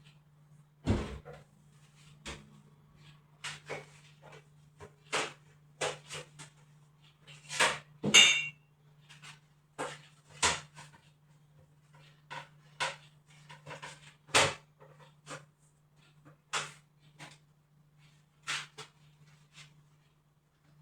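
Irregular knocks and clacks of household objects being handled and set down during cleaning, roughly one a second and some louder than others, over a faint steady low hum.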